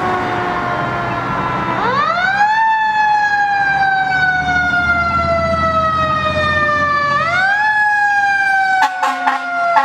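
Fire truck siren wailing: it climbs quickly in pitch twice, about two seconds in and again near seven seconds, and winds slowly down after each climb. An engine rumbles low underneath. In the last second, a horn starts sounding in quick short blasts.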